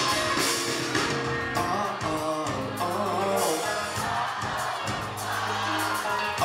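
Live pop band performance: a male lead voice singing into a microphone over the band's backing, with sustained bass notes underneath.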